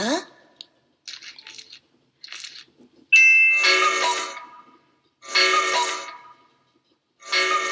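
Electronic sound toy playing synthesized effects: a short high beep, then the same chiming, ringtone-like sound three times, about two seconds apart, each fading out over a second or so.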